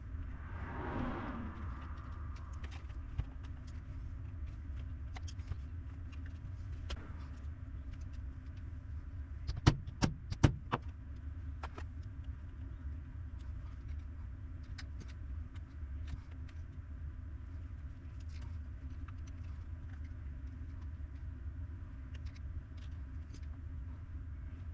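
Small scattered clicks and taps from handling parts at a workbench over a steady low hum, with a quick run of four or five sharp clicks about ten seconds in.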